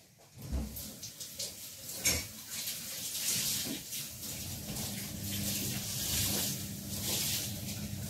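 Kitchen tap running into the sink, starting about half a second in, a continuous splashing rush of water.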